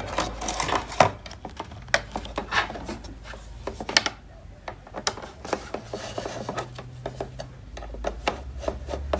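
Irregular clicks, taps and rubbing of objects being handled on a workbench, with a few sharper knocks near the start and about four seconds in, over a low steady hum.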